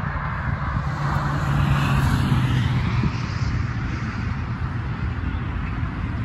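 A passing vehicle: a low engine hum with road noise that swells to a peak about two seconds in, then fades.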